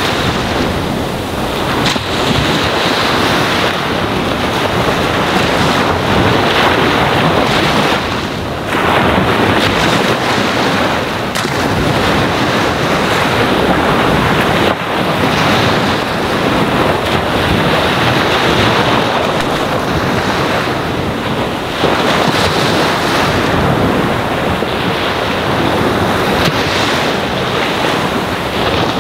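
Ocean waves washing onto a sandy shore: continuous surf that swells and eases every few seconds.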